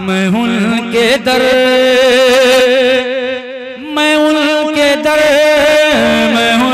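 A man singing a naat solo, drawing out long held notes with a wavering vibrato and ornamented runs. About three seconds in he pauses briefly for breath, then takes up a new held note.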